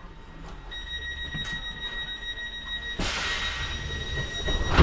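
Train door-closing warning tone sounding steadily, high-pitched, while the doors close. A hiss joins about three seconds in, and the doors shut with a heavy thud at the end.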